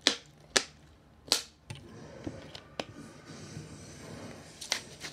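A thin plastic water bottle holding liquid being shaken to mix it: sharp crackles and knocks from the plastic, about six of them, the three loudest in the first second and a half, with a soft swishing between them.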